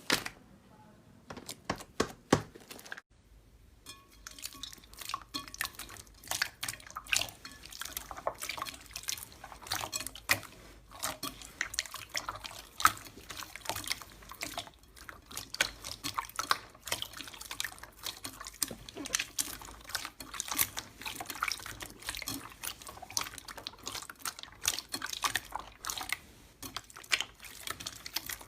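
Slime being squeezed and kneaded by hand, a dense run of small wet clicks, squelches and air-bubble pops. A few scattered clicks come first, and the steady squishing starts about three seconds in.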